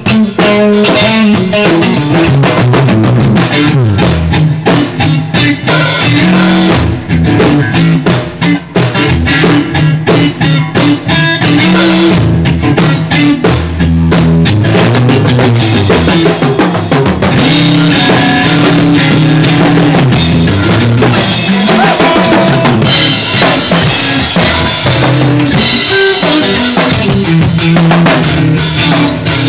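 Loud live rock band jamming without vocals: a drum kit played hard, with kick, snare and rimshots, under electric guitar played through Marshall amplifiers.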